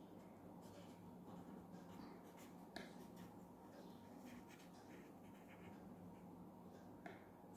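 Faint scratching of a pen writing on paper on a clipboard, in short strokes, with a light tick about three seconds in and another near the end.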